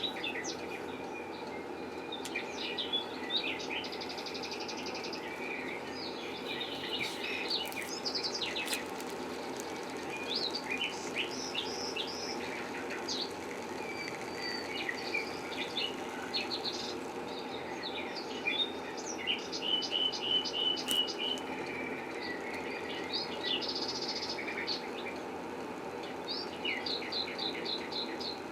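Small birds chirping and trilling over a steady machine hum, typical of a small power tool running while a hole is machined in a gear.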